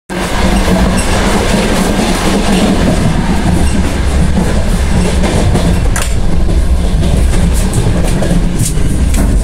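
Passenger train in motion heard from inside the carriage: a loud, steady rumble of the wheels running on the rails, with a sharp click about six seconds in.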